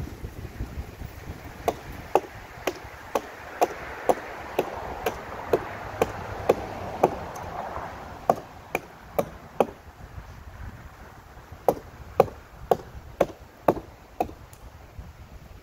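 Hatchet chopping into a fallen tree branch: sharp woody strikes about two a second, with a short break about eleven seconds in. Wind rumbles on the microphone underneath.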